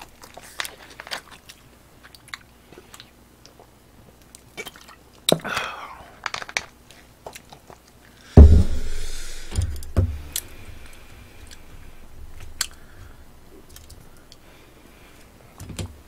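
Close-miked chewing and lip-smacking of roast chicken and sticky rice, with scattered small clicks. About eight seconds in comes one loud thump with a brief hiss.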